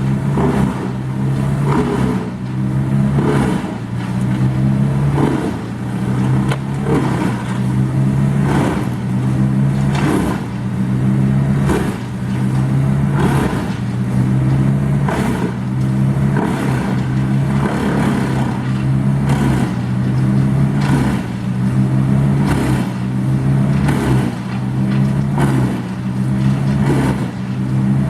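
A large engine running steadily under load, with a sharp, regular clatter about every one and a half to two seconds.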